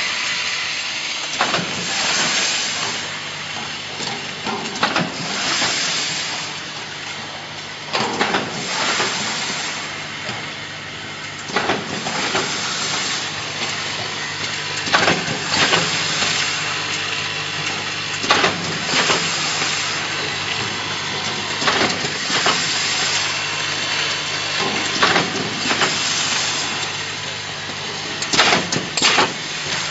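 Coffee bean granule packing machine running, with a steady motor hum. A short double burst of mechanical noise comes about every three and a half seconds as it cycles through each bag.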